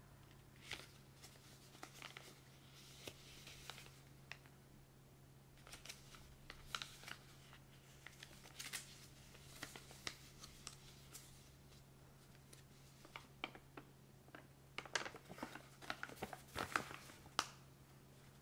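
Printed paper leaflet being unfolded by hand: scattered crinkles and crackles of the paper folds, coming in clusters and busiest near the end.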